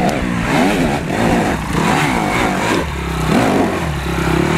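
Honda enduro motorcycle engine revving up and down about twice a second as it claws up a steep, loose climb, then settling to a lower, steadier run near the end as the bike pulls up.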